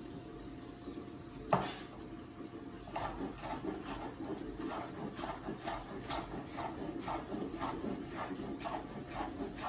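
Chef's knife slicing a yellow bell pepper into strips on a wooden cutting board: steady chopping knocks, about two to three a second, starting about three seconds in. A single sharper knock comes about a second and a half in.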